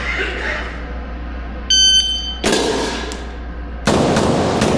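A shot timer's electronic start beep, followed about half a second later by a first pistol shot from a Taran Tactical JW4 Pit Viper 2011 pistol. A rapid string of shots starts near the end.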